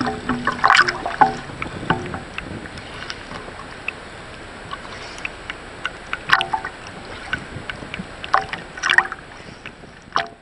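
Small waves splashing and slapping against a camera held at the sea surface, a steady watery wash broken by louder splashes in the first second, about six, eight and nine seconds in, and once more just before the end.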